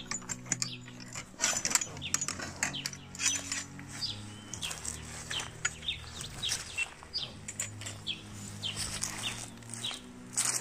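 Small birds chirping: many short, high calls one after another, over a low steady hum.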